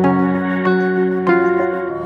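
Calm instrumental background music: sustained pitched notes in a slow, even pulse, with a new note about every two-thirds of a second.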